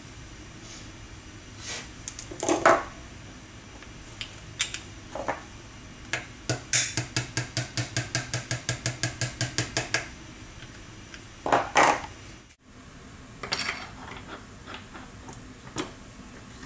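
A small hammer tapping a steel pin into the tool's housing: a quick, even run of about twenty light metallic taps, some six a second, midway through. Scattered single clinks of metal parts being handled come before and after.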